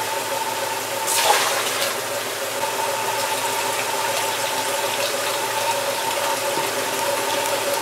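Water rushing and splashing through a car's cooling system during a coolant flush, with the engine running; a steady hum under the water, and a brief louder rush about a second in.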